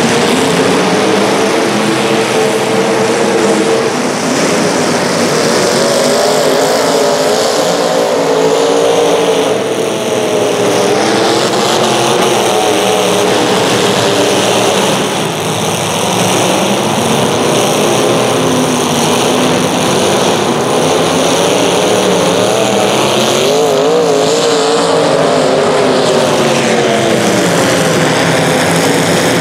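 Several small racing engines running together through a heat, their overlapping pitches rising and falling repeatedly as they rev up and ease off.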